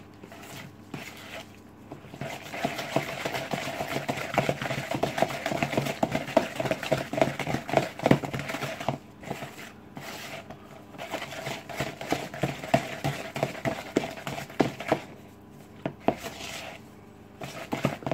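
Wooden spoon beating a creamed butter, sugar and egg mixture in a plastic mixing bowl: quick, irregular scraping and knocking against the bowl, with a few short pauses.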